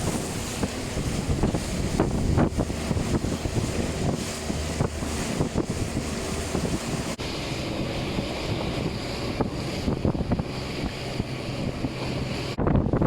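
Strong wind buffeting the microphone over rushing, splashing water as an Optimist sailing dinghy moves through choppy water, with scattered short knocks. The noise turns abruptly louder near the end.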